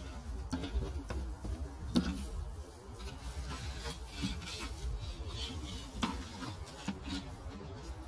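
A small plastic bucket knocking and rubbing as a borzoi puppy picks it up in its mouth and carries it through grass: a few sharp knocks, the loudest about two seconds in, over a low steady rumble.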